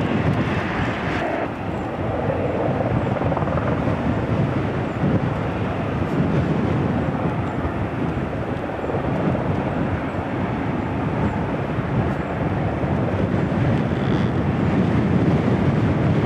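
Jet airliner engines running, a steady rumble.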